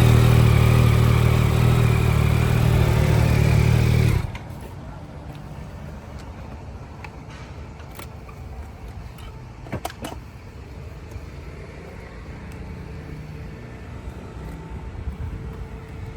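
2024 Yamaha XSR900 GP's inline three-cylinder engine idling steadily, then stopping abruptly about four seconds in, leaving a much quieter background with a few faint clicks.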